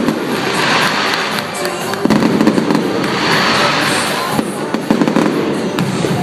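Fireworks going off in rapid, overlapping bangs and crackles, over a pop music mix played through loudspeakers.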